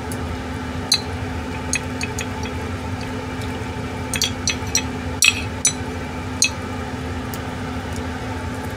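Light clicks and clinks of chopsticks and metal skewers against a ceramic plate and the grill's wire rack as skewered chicken and liver are dipped in soy sauce and put back, most of them bunched together from about four to seven seconds in. A steady low hum runs underneath.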